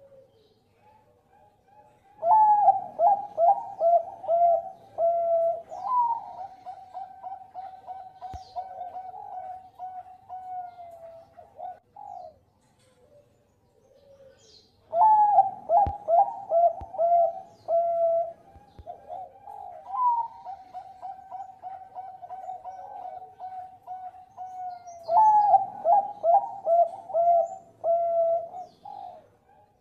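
Zebra dove (Thai-bred 'Bangkok' perkutut) singing in three bouts, a couple of seconds in, about halfway and near the end. Each bout opens with a loud run of quick staccato coos and trails off into a long, softer rolling coo.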